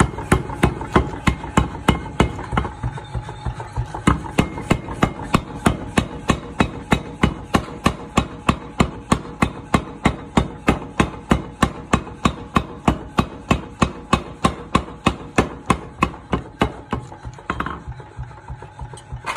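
Mechanical power hammer pounding red-hot iron on its die, a fast, even run of blows about three to four a second, flattening the iron into thin sheet. A faint steady hum of the machine runs beneath the strikes.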